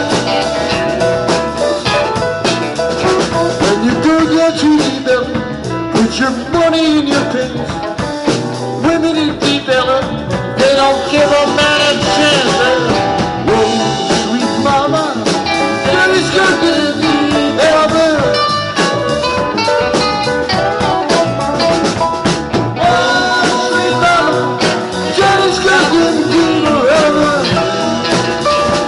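Live five-piece band playing an upbeat blues: electric guitars, bass guitar, drum kit and keyboard.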